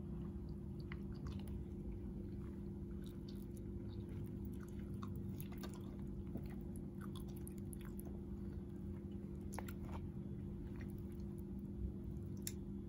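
Quiet eating sounds of cheese-topped fried banana: scattered small clicks and crackles as a plastic fork works the food in a plastic tray, over a steady low hum.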